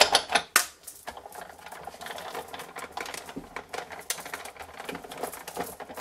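Sizzix Big Shot die-cutting machine being hand-cranked, the clear plates and magnetic platform feeding through the rollers with a steady run of small clicks and crackles. There are a few sharp knocks in the first second, and bracelet charms jingle on the cranking hand.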